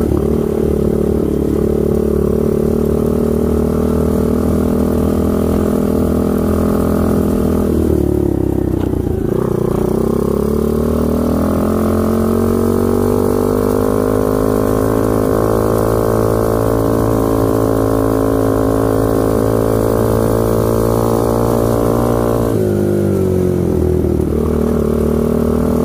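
New 125 cc manual-gear ATV engine running under way. The revs dip and climb again about a third of the way in, hold steady, then dip and recover again near the end, as at gear changes.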